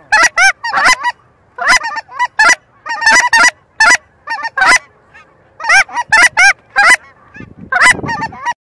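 Flock of geese in flight, honking in quick clusters of short calls that overlap one another; the honking cuts off abruptly near the end.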